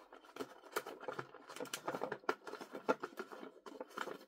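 Light, irregular clicks and taps of a toy and its plastic and cardboard packaging being handled as it is freed from its ties.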